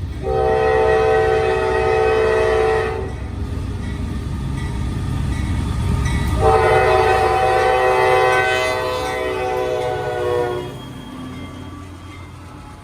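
The air horn of a Norfolk Southern AC44C6M locomotive sounding two long blasts, about three and four seconds long with a pause between, over the rumble of the passing train. The horn is an odd-sounding, recycled horn typical of these units. The rumble fades near the end.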